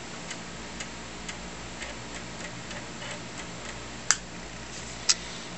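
Amiga 2000 disk drive ticking faintly and fairly regularly, about twice a second, as the computer boots, over a steady low hum. Near the end come two sharper, louder clicks a second apart.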